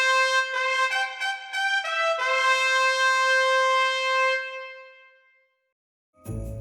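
Solo trumpet playing a short phrase of single notes, ending on a long held note that fades away. After a moment of silence, a loud new sound cuts in just before the end.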